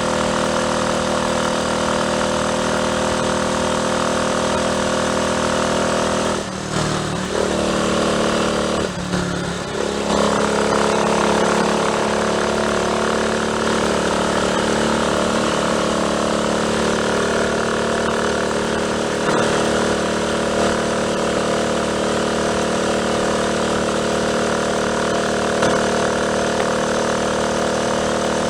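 Triumph Tiger Cub's single-cylinder four-stroke engine running steadily, its note dipping and shifting pitch twice a few seconds apart, about a third of the way in.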